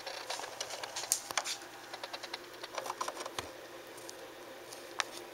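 A small animal scratching and digging inside a wall: irregular runs of quick, sharp scratches and clicks. They are busiest in the first second and a half, come again briefly about three seconds in, and end with a single click near the end.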